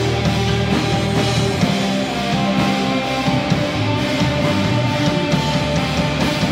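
A rock band playing live and loud: electric bass guitar and drum kit, with held low bass notes under steady drumming.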